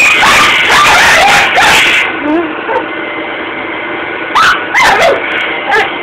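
Dog barking and yipping at a running Dyson vacuum cleaner, in high yelps that bend up and down in pitch. A quick run of yaps in the first two seconds, a lull about two seconds long, then several sharp yips near the end, with the vacuum's steady motor noise underneath.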